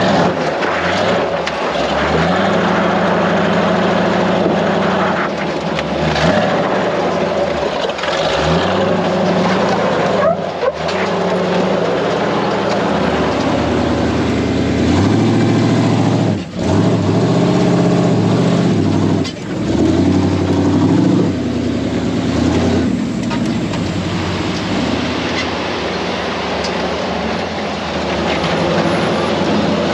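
Off-road truck engine running as the vehicle crawls over rock and gravel, its revs rising and falling repeatedly, heard close up from a body-mounted camera.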